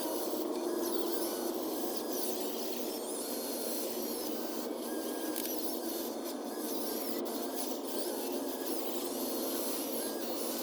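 Small electric motors of RC construction machines whirring in sped-up timelapse audio, with short high whines coming and going over a steady scraping noise.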